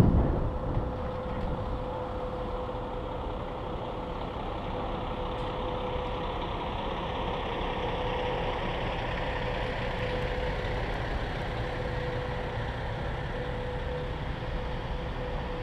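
A pickup's engine running steadily as the truck creeps forward at low speed, heard from inside the cab, with a constant whine over the hum. A rush of wind noise fades away in the first second as the truck slows.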